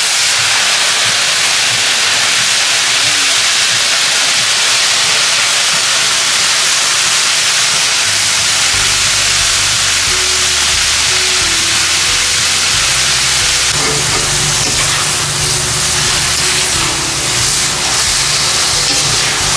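Grasshoppers deep-frying in hot oil in a wok, a loud steady sizzling hiss as the water in the freshly added insects boils off. A low hum joins underneath about nine seconds in.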